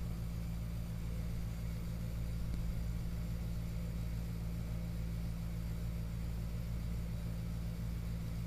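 Steady low electrical or mechanical hum with a faint hiss over it, unchanging throughout.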